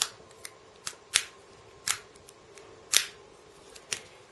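Kingston DataTraveler 100 G2 USB flash drive's retractable slider being pushed back and forth, giving a series of sharp plastic clicks. The clicks come irregularly, a louder one about every second with fainter ones between, as the connector slides out and in.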